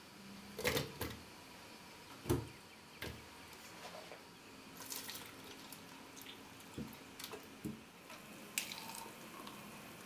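Kitchen handling sounds as vanilla ice cream is scooped into a plastic blender jug of fruit: a series of soft knocks and clicks, about nine in all, the loudest about two seconds in.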